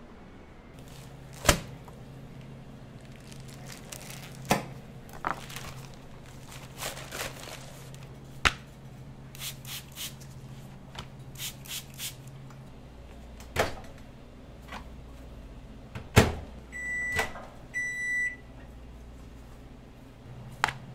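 Kitchen handling sounds: scattered knocks and light taps of tortillas and utensils over a steady low hum. About three-quarters through, a microwave oven's panel gives two short beeps, each about half a second long.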